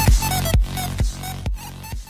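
Electronic dance music with a steady kick drum about two beats a second and a melody over it, fading out near the end.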